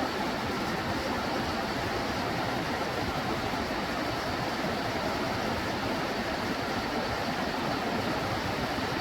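Steady rushing of a mountain stream, an even wash of water noise with no change.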